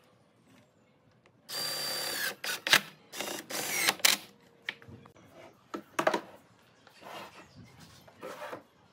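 Cordless drill driving screws through a caster wheel's mounting plate into a pine frame: one steady run of about a second starting about a second and a half in, then several short bursts as the screws seat, and a few softer knocks later on.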